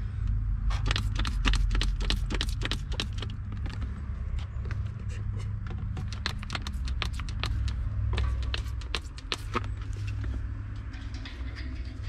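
Trigger spray bottle of leak-detection soap solution squirted again and again at a propane tank's regulator and fittings in a gas leak test: a quick run of sharp spritzes that thins out near the end, over a steady low rumble.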